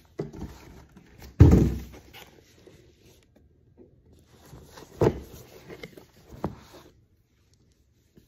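Hair dryer packaging being handled during unboxing: a loud thunk about a second and a half in, another about five seconds in and a lighter knock after it, with light rustling in between.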